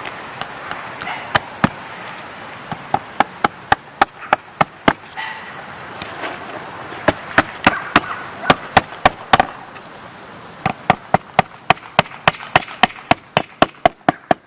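Hammer driving nails through roofing felt into the roof decking: quick series of sharp strikes in three runs with short pauses between, re-nailing felt whose original nails had worked loose.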